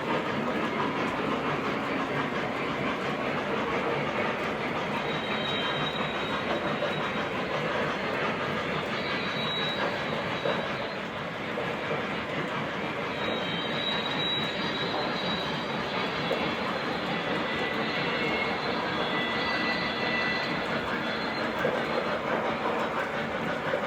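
O gauge model trains running on the layout: a steady rumble of metal wheels on track, with faint high squeals coming and going a few times.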